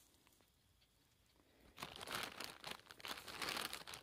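Crunchy peta, a baked cassava-starch biscuit, being chewed close to the microphone: a dense crackling crunch that starts about halfway through and lasts about two seconds.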